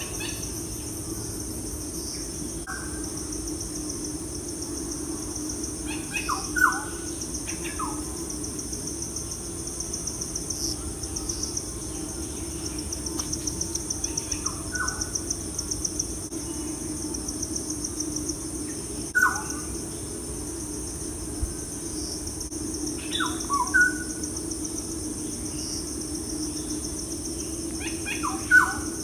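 Crickets trilling steadily in the background, with short bird chirps every few seconds over a low steady hum.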